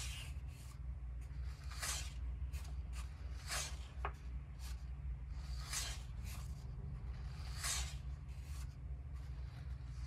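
Pages of a large hardcover photobook being handled and turned by a white-gloved hand: soft paper swishes and rubs about every two seconds, with a small click about four seconds in, over a low steady hum.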